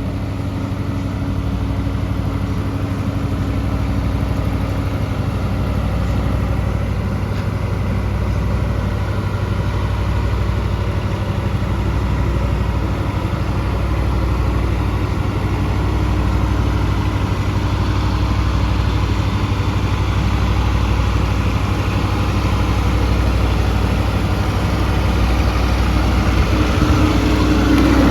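Bobcat E10Z mini excavator's small diesel engine idling steadily, with a slight rise in engine note and level near the end.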